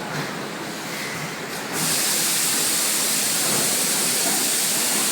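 Automatic cooking oil filling machine running with a steady mechanical noise; about two seconds in, a loud steady hiss cuts in suddenly and holds.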